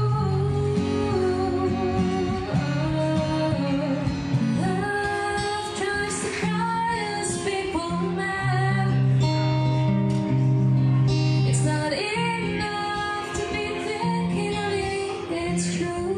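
A woman singing live, accompanying herself on an acoustic guitar.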